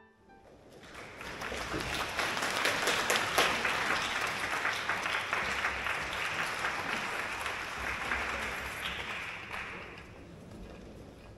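A concert-hall audience applauding. The clapping swells up about a second in, holds steady, and fades away near the end.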